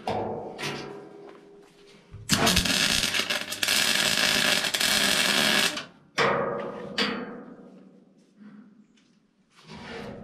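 MIG welding arc running steadily for about three and a half seconds, starting and stopping abruptly as a bead is laid on the steel frame.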